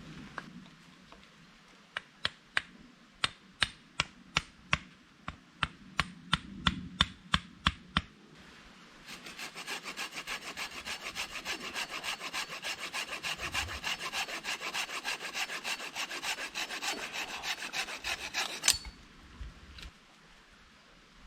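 A run of sharp knocks on wood, about three a second, then a hand saw cutting through a branch in fast, even strokes for about ten seconds, ending with a sharp crack.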